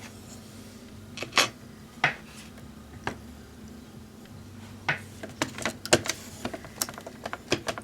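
Scattered clicks and taps of a Dell Latitude D520 laptop's parts being handled as a board is worked loose from the chassis: a few spaced clicks, then a quicker run of them in the second half, over a low steady hum.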